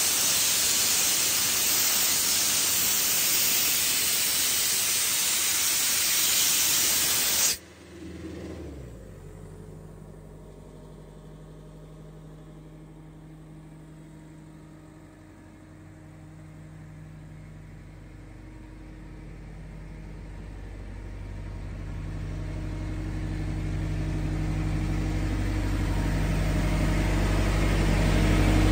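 Compressed air blowing out of a 420 cfm road compressor's air line as a loud steady hiss, which cuts off suddenly about seven and a half seconds in. The compressor's diesel engine then runs on at an even note, getting steadily louder toward the end.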